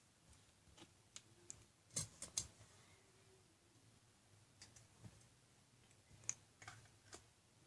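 Near silence broken by scattered faint clicks and taps of plastic Play-Doh tools and pieces being handled, with a quick run of three about two seconds in and a few more near the end.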